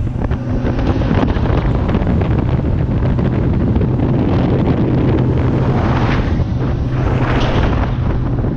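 A Checkmate 28 powerboat running at speed on twin Mercury 250 outboards: a steady low engine drone under heavy wind buffeting on the microphone and rushing water from the hull and wake.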